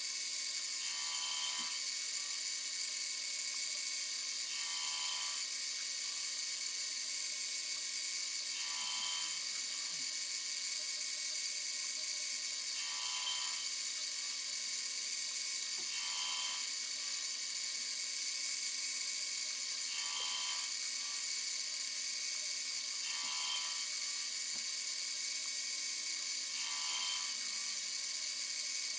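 Mini-mill spindle running with a steady high whine while its gear cutter cuts the teeth of a brass gear blank on a dividing head, sped up four times. A short, louder burst comes about every three and a half seconds.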